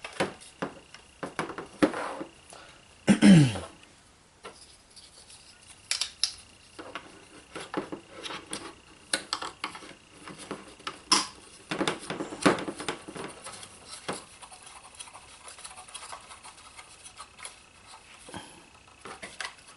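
Small plastic parts and packaging being handled by hand: scattered clicks, taps, light rattles and rustling as a toy drone's controller and its monitor mount are assembled. A short falling sound about three seconds in is the loudest moment.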